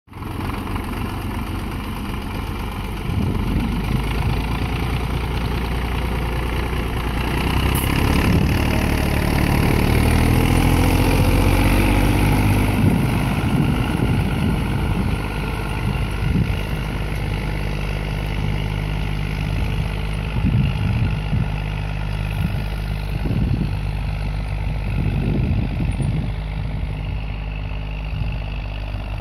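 Zetor 3211 tractor's diesel engine running steadily under load while pulling a spring-tine cultivator. It is loudest around ten to twelve seconds in, with the note bending up and back down, then stays steady.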